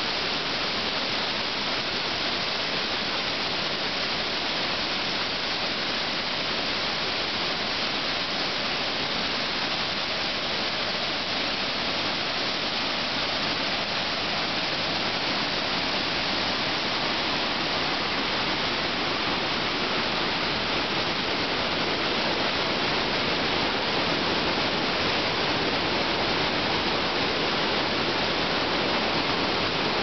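Waterfall pouring as white water over large boulders: a steady, unbroken rushing, a little louder in the second half.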